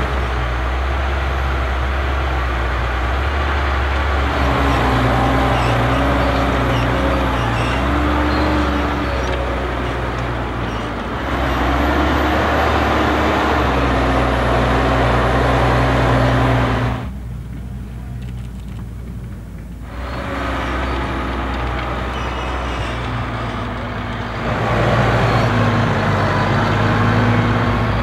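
Massey Ferguson 7715 Dyna VT tractor's six-cylinder diesel engine working steadily under load while ploughing. Its pitch and loudness shift a few times, with a duller, quieter stretch a little past halfway.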